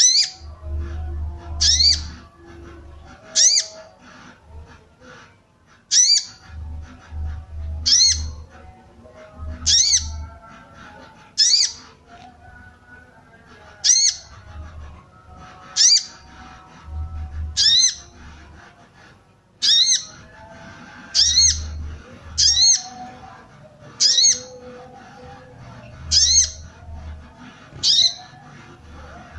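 Female little spiderhunter (sogok ontong) giving sharp, high 'cuit' calls, one every one and a half to two and a half seconds, about sixteen in all: the call used as a lure to stir male birds into song. A faint low hum comes and goes underneath.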